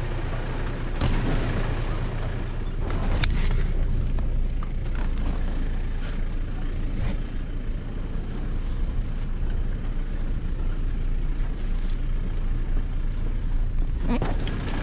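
Toyota Hilux engine running low and steady in low range as the 4WD crawls over a rocky track, with a few sharp knocks along the way.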